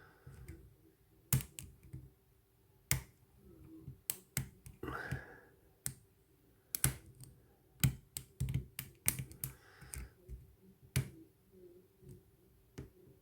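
Sharp, irregular metallic clicks and taps of a short hook pick and tension wrench working in a euro cylinder lock during picking.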